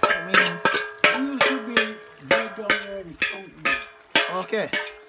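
Metal cooking pot being struck and stirred with a metal spoon, giving a rapid run of ringing clanks, about two or three a second, that stop just before the end.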